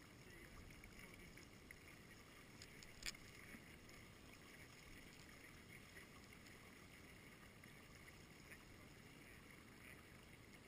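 Near silence: faint water sounds around a dragon boat gliding with its paddles at rest, with one sharp click about three seconds in.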